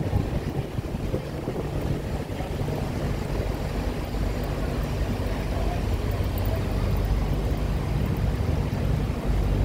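Engine of a tourist road train running steadily as it rolls slowly along a cobbled street, a low hum with rumble and road noise; the hum grows louder near the end.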